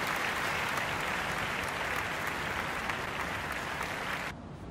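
Crowd applauding: a dense, steady patter of clapping that cuts off suddenly near the end.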